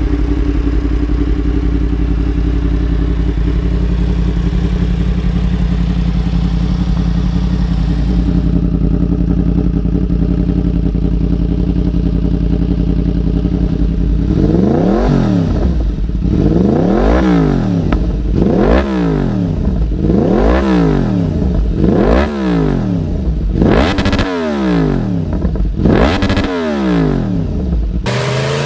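Motorcycle engine through an Akrapovic aftermarket exhaust, idling steadily for the first half. From about halfway it is revved again and again, about eight blips that each rise and fall in pitch.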